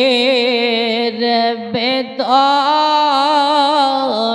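A man's voice singing a slow Bengali devotional salam, drawing out long held notes with vibrato, with a short break for breath about two seconds in.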